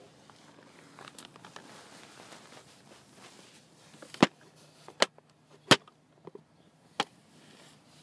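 Handling noise of a phone being moved and set down: soft rustling, then four sharp knocks spread over about three seconds in the second half, the loudest sounds here.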